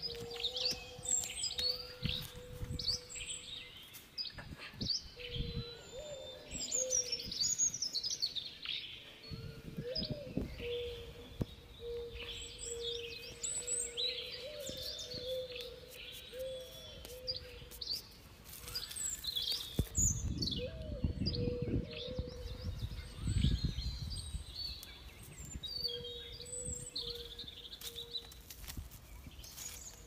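Birds chirping and calling throughout, over the scraping and knocking of a wooden digging stick in dry, stony soil and hands scraping soil away from a wild yam tuber, loudest about two-thirds of the way through.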